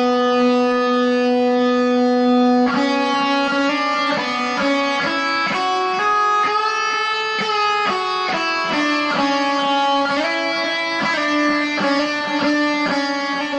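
Instrumental background music: one long held note for about the first three seconds, then a melody of quick, changing notes.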